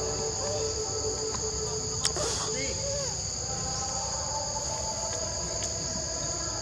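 Steady, high-pitched chorus of forest insects droning without a break, with one sharp click about two seconds in.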